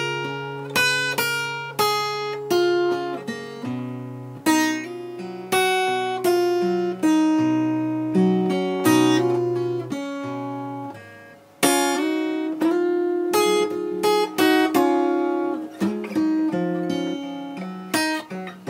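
Acoustic guitar played fingerstyle in G: picked single notes and short runs over a ringing bass note, each note ringing and fading, with a brief pause about eleven seconds in.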